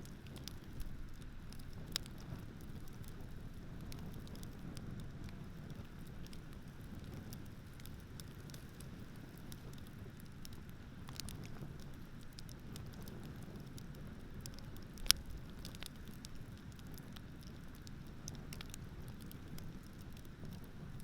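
Campfire crackling, with scattered sharp pops, the loudest about three-quarters of the way through, over a steady low rumble of ocean surf.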